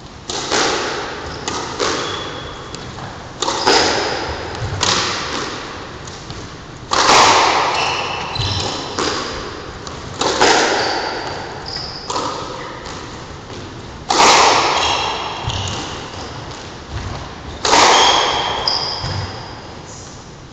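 Squash rally: the ball is struck by rackets and cracks off the walls, giving a string of sharp hits every second or two, each ringing on in the enclosed court's echo. Short high shoe squeaks on the wooden floor come between the hits.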